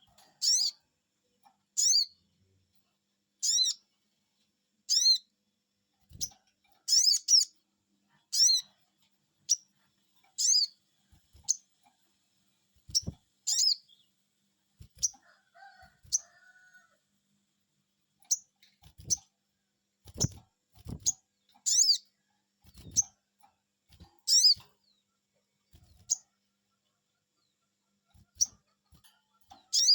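Crimson sunbird (sogon) giving sharp, high 'cuiit' calls, each a quick downward slur, repeated about every one to two seconds as a lure recording to prompt other sunbirds to answer. A few dull low thumps come in the second half.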